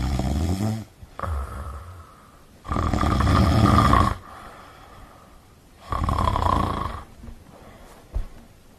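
Golden retriever snoring while it sleeps sitting upright, loud snoring breaths roughly every two to three seconds, the loudest about three seconds in. A short knock near the end.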